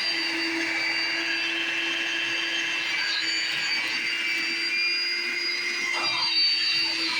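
Vacuum cleaner running steadily: an unbroken motor hum with a high whine over a rushing hiss.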